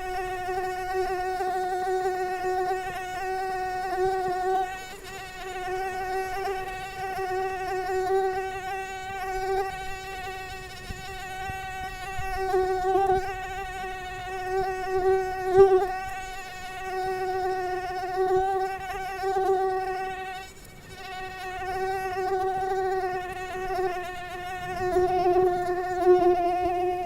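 Mosquito whining in flight: a steady high-pitched hum with a stack of overtones, wavering slightly in pitch and swelling and fading as it moves about, with two brief dips.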